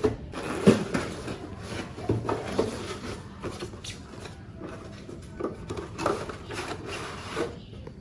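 A cardboard box being cut open and unpacked by hand: a sharp click under a second in, then scattered rustling, scraping and tapping of cardboard flaps and packing.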